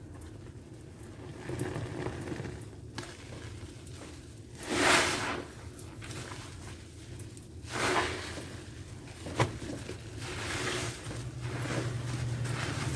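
A soapy wet sponge being squeezed, in a few separate squelching squeezes. The loudest comes about five seconds in and another about eight seconds in, with a sharp click a little after nine seconds. A low steady hum rises near the end.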